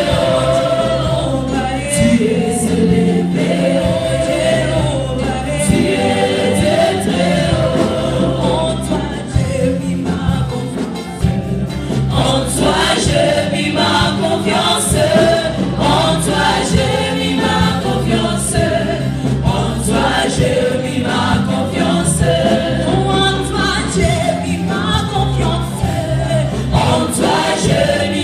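Gospel choir singing in several voices, with a live band under it: an electric bass holds low notes beneath the voices.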